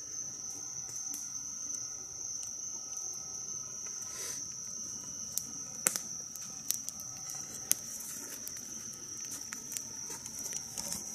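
Crickets chirring steadily in one high, continuous trill, with scattered sharp clicks and snaps.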